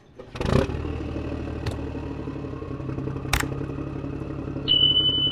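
An engine runs steadily with a low hum, and a few sharp clicks sound over it. A steady high tone starts near the end.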